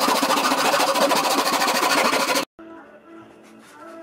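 Back saw cutting a block of yew wood clamped in a vise: a steady, even rasp that stops abruptly about two and a half seconds in. Faint music follows.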